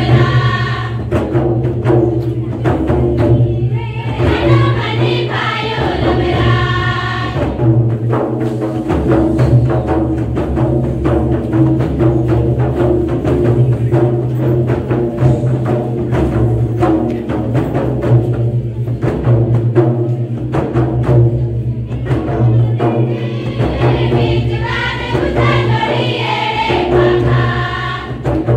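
Jharkhand Karam folk music: a group singing together over fast, dense hand-drumming on a mandar barrel drum. The voices fall back for a long middle stretch while the drumming keeps going, and come back strongly near the end.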